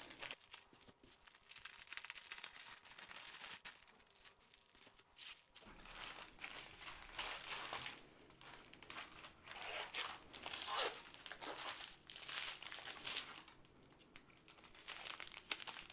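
Clear plastic packaging crinkling as a strip of small sealed bags of diamond-painting drills is unrolled and spread out by hand, with irregular rustles and crackles that ease off briefly near the end.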